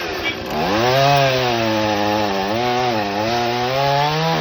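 Chainsaw engine revving up about half a second in, then running at high speed with its pitch dipping and recovering repeatedly as it cuts through wood.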